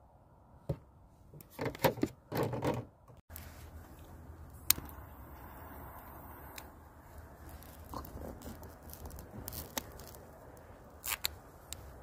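Rustling and scraping as things are handled close by, loudest about two seconds in. After an abrupt cut, a low steady rumble with sparse sharp clicks and crackles.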